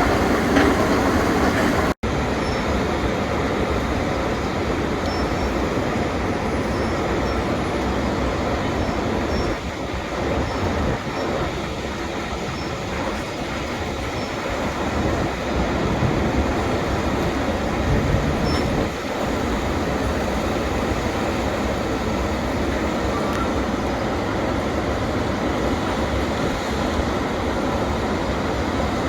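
KU 300/23 bucket-wheel excavator running: a steady, loud mechanical rumble and clatter from the huge machine, with a momentary break about two seconds in.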